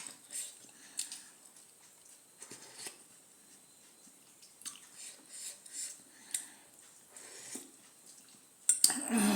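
Eating at a table: scattered light clicks of a spoon and cutlery against dishes, with soft mouth noises between them. A louder rush of noise comes near the end.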